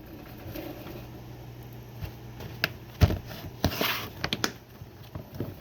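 Handling knocks and clicks as a handgun is laid into its box: a sharp knock about three seconds in, a short rustling scrape just before four seconds, and several light clicks.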